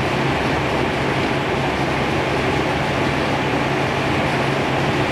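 Fire apparatus engine running steadily, a constant low hum under a wide, even mechanical noise.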